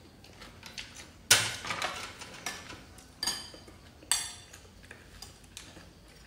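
Metal spoons and chopsticks clinking against ceramic bowls during a meal: a few sharp clinks with a short ring, the loudest about a second in.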